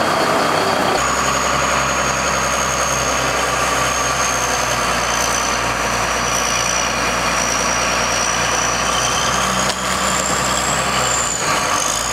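Diesel engine of a John Deere wheel loader running: a steady low engine hum with a thin high whine over it. It sets in about a second in.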